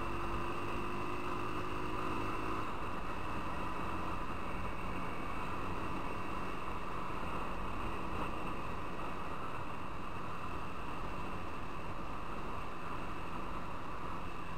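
Motorcycle riding at steady speed: constant wind and road rush over the bike's camera microphone, with a faint engine note that fades under the noise about two and a half seconds in.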